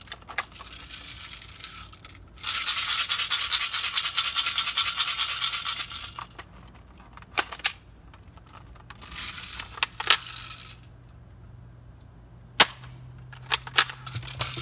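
Airsoft gun firing on full auto: a loud, rapid rattling burst about two seconds in that lasts nearly four seconds, then a shorter, weaker burst near the middle, with several single sharp pops and clicks toward the end.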